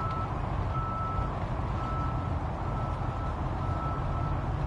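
Vehicle reversing alarm beeping about once a second, each beep a single steady tone, over a continuous low rumble.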